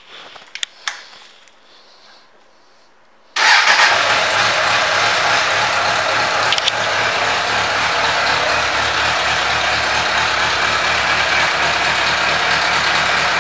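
A few faint clicks, then about three and a half seconds in the 1998 Suzuki Bandit 600's inline-four engine starts abruptly and settles into a steady idle.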